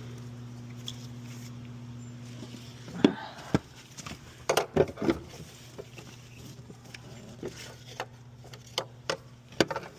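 A steady low electrical hum that stops about three seconds in, then a run of sharp clicks and knocks as small parts are handled and fitted.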